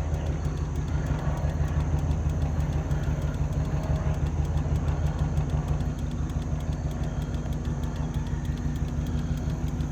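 Vehicle engine idling steadily with an exhaust leak, which gives a fast, even ticking that runs in time with the engine.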